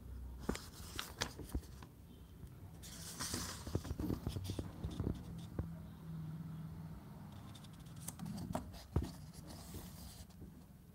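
Paper pages of a printed booklet being turned and handled: rustling in two spells, a few seconds in and again near the end, with scattered light clicks and taps.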